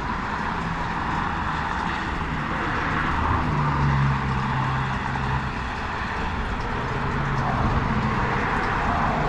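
Road traffic on a bridge: a steady rush of tyre and wind noise, with a low engine hum that swells and fades between about three and five seconds in as a vehicle passes.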